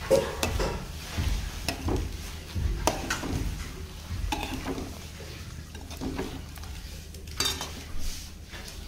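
Metal kitchen utensils clattering: a metal spoon clinking and scraping against metal cookware in irregular knocks, some with a short ring.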